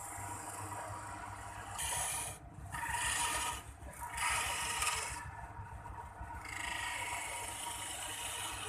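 Wood lathe spinning a wooden spindle while a hand-held turning chisel cuts into it, giving scraping, shaving passes in several bursts over a steady low motor hum.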